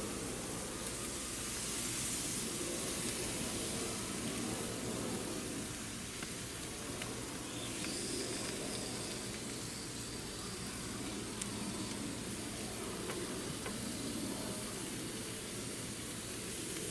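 Steady sizzling hiss from a charcoal grill as bacon-wrapped turkey bites are laid on the hot grate, with a few faint clicks.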